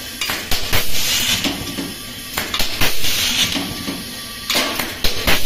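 Auto-feed blind rivet gun setting rivets one after another: sharp mechanical clicks as each rivet is set, alternating with short bursts of air hiss as compressed air blows the next rivet through the feed tube to the nozzle. The cycle repeats roughly four times.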